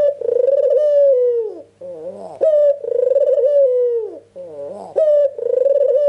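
White ringneck dove (puter) cooing over and over, about three phrases in a row. Each phrase starts with a short wavering lower note, then jumps up sharply into a long coo that slowly falls in pitch.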